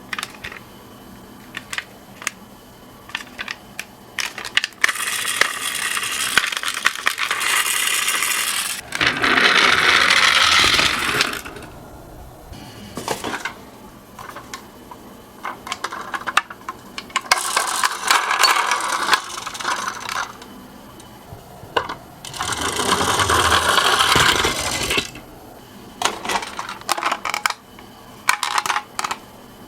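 Toy minicars rolling down a slope, a rattling clatter of small wheels and bodies in three runs of a few seconds each. Between the runs come separate sharp clicks.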